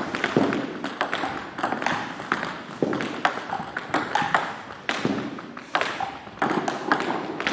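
Table tennis ball clicking off the table and off the bat in a rapid series of forehand flicks. Each hit echoes in a large sports hall.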